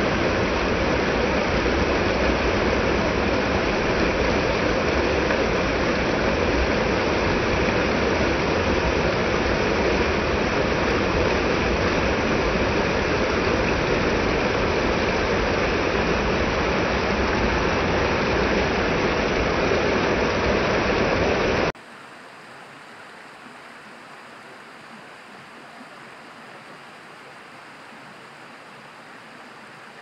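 Small stream splashing down over rocks: a steady rush of running water that suddenly drops to a much fainter rush about three-quarters of the way through.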